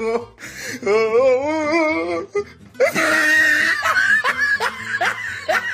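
Music soundtrack with a wavering vocal line, then a denser passage about three seconds in, mixed with laughter.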